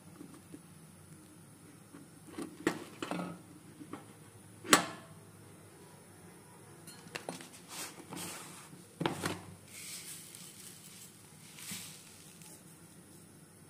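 Scattered knocks, clicks and clinks of household things being handled in a small room, the sharpest clink a little under five seconds in, with soft rustling later on.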